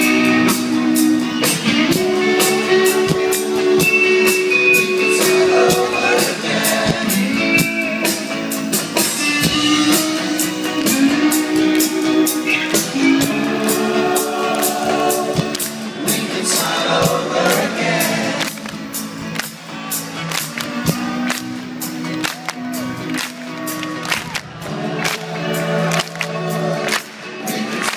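Live rock band playing a song with sung vocals, guitars and a steady drum beat, heard from within the audience.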